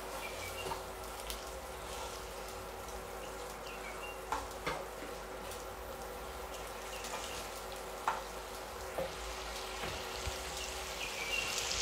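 Chicken wings and their soy-honey glaze sizzling steadily in a frying pan, with a few sharp clicks of metal tongs against the pan and bowl, twice about four seconds in and twice more near eight and nine seconds.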